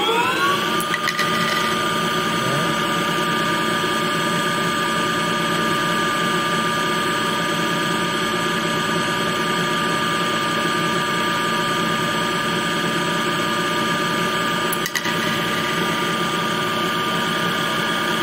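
Home-built CNC lathe spindle spinning up, its whine rising in pitch and settling within the first second, then running steadily at speed with a high whine over a hiss. There is a short click about 15 seconds in.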